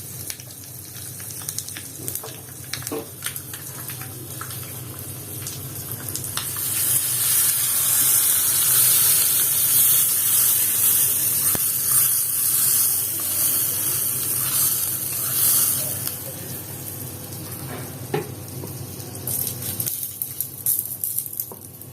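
Tempering in hot sesame oil sizzling, with mustard seeds spluttering and crackling. The sizzle grows much louder about six seconds in and eases off again after about sixteen seconds.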